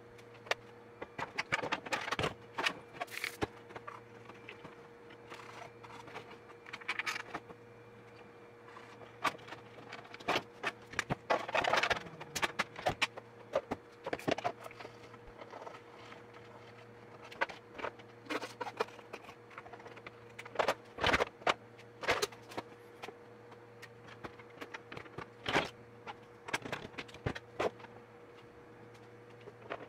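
Plastic body covers and parts of a Singer Simple sewing machine being handled and fitted back on, making irregular clicks, knocks and short scrapes.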